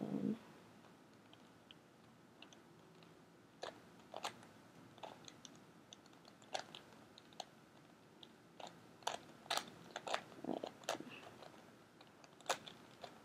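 A Megaminx, a twelve-sided plastic twisty puzzle, being turned by hand: faint, irregular plastic clicks and clacks as its faces rotate, with a dozen or so sharper clicks scattered at uneven intervals.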